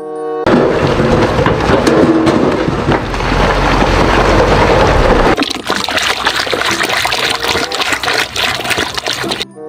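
Water gushing and splashing over toy vehicles being washed. For the first half it is a heavy, steady rush with a deep rumble; about halfway through it thins to a crackly splashing and dripping.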